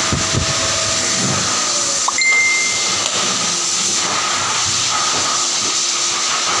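Pet grooming blower dryer running, a steady loud rushing hiss of air. About two seconds in there is a brief click followed by a short high tone lasting about a second.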